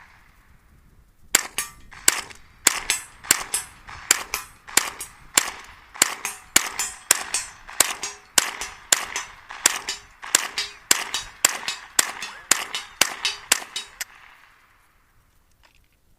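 .22 rifle fired in a rapid string of sharp cracks, about three shots a second, for some twelve seconds before stopping, each shot followed by a short ringing echo. The magazine feeds every round without a jam.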